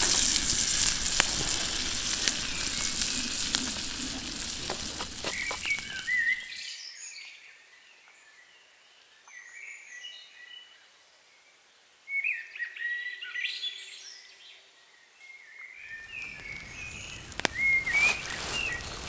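Food sizzling and crackling in a small frying pan over a wood fire. About six seconds in the sizzle drops away suddenly, leaving small birds chirping, and the sizzle comes back near the end.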